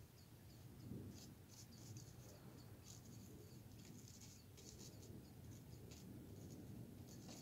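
Faint, short strokes of a paintbrush on paper, many in quick, uneven succession, over a low steady room hum.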